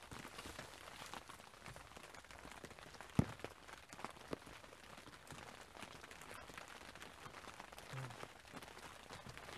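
Light rain pattering, with scattered drops ticking close by, and one sharp knock about three seconds in.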